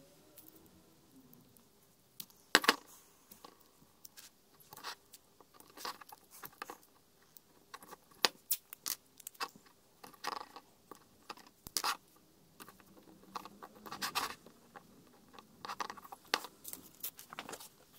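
Paper masking tape being crinkled, torn and pressed onto a finned cylinder head by hand: irregular crackles, scrapes and light clicks, with one sharper click a few seconds in.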